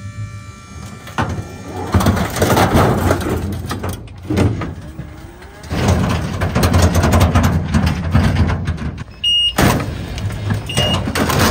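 Hydraulic dump bed of a small electric pickup truck lifting with a steady whine, then loud scraping and clattering of a mini excavator sliding off the tilted steel bed. A couple of short high beeps sound near the end.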